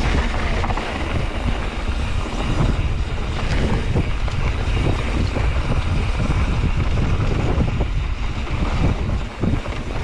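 Wind buffeting the camera microphone while a Santa Cruz Hightower LT mountain bike rattles over a dirt trail, with frequent irregular knocks as the tyres and frame hit bumps.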